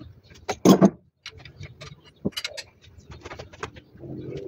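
Hand tools clicking and clinking on metal while the starter motor is bolted on, with one louder knock just under a second in and then a run of quick ticks.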